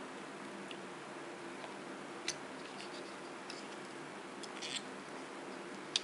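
A few faint, sharp metallic clicks of needle-nose pliers gripping and bending paper clip wire: one a couple of seconds in, a small cluster later, and the sharpest near the end, over a steady low hum.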